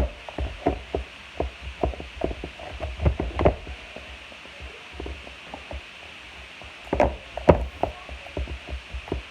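Slime being squeezed and pressed by hand, making a run of irregular sharp clicks and pops, with a lull in the middle.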